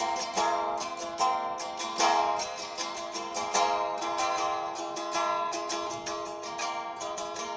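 Guitar being picked: a quick run of plucked notes, several a second, ringing over one another.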